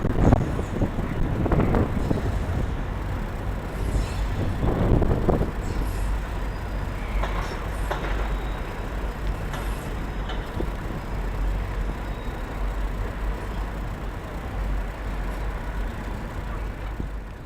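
Steady low rumble of vehicles, with a few short high squeaks and clicks and louder swells near the start and about five seconds in.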